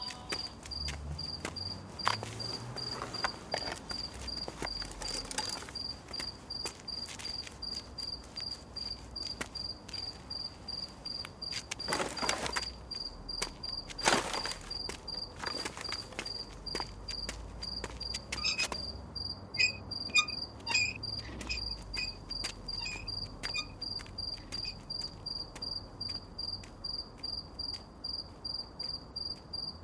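Crickets chirping in a steady, regular high pulse over a low background rumble, with scattered clicks and a few brief louder rustling noises, the loudest about fourteen seconds in. From about two-thirds of the way through, other short, lower chirps join in.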